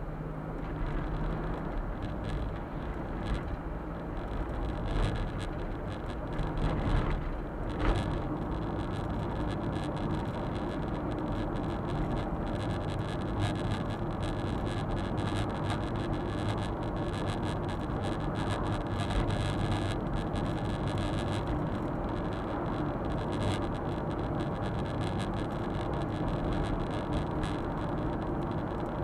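Suzuki Super Carry kei truck driving, heard from inside the cab: steady engine hum and tyre noise, with a single knock about eight seconds in.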